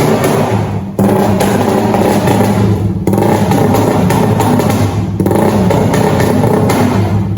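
Vehicle engine idling loudly while being warmed up after standing unused for a long time, its note shifting briefly about every two seconds.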